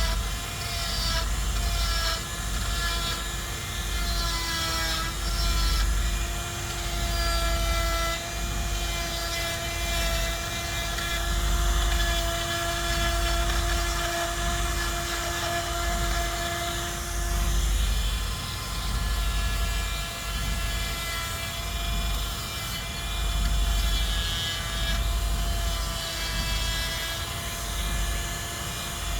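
Chainsaw cutting into a wooden log in repeated passes, its sound swelling and easing about every two seconds.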